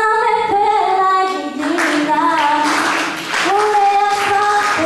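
A woman singing unaccompanied into a microphone, holding long notes that step and slide between pitches.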